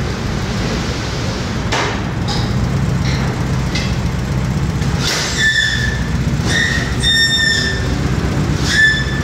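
Volkswagen Kombi van's engine running steadily at low revs as the van backs down off a workshop ramp, with its brakes giving three high squeals in the second half as it is eased down and stopped.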